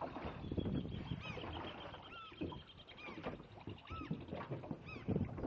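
A dog whining in short, high squeaks that rise and fall, repeated about once or twice a second.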